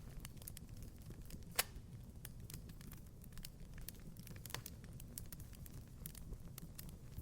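Wood fire crackling in a fireplace: faint, irregular small pops and snaps, with a louder pop about a second and a half in and another a little past the middle, over a low steady rumble.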